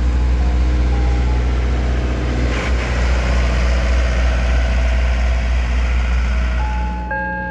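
Ice cream truck's engine running loud and steady as the truck pulls away, with a faint jingle melody above it. About seven seconds in, the engine sound drops away and a chiming melody takes over.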